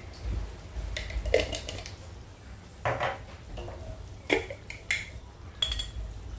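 A metal cooking utensil knocking and clinking against cookware, about six separate strikes spread out, some with a short ring, over a steady low hum.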